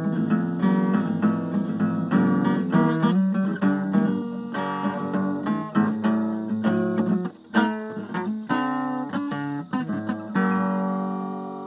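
Acoustic guitar played solo, a quick run of picked notes and strummed chords; near the end a last chord is left ringing and fades.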